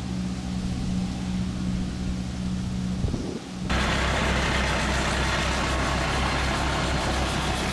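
An engine running steadily with an even hum; about three and a half seconds in it changes abruptly to a louder, lower engine sound with a lot of rattling noise over it.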